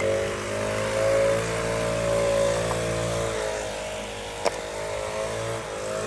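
Petrol leaf blower running, its engine note wavering slowly up and down. A single sharp click about four and a half seconds in.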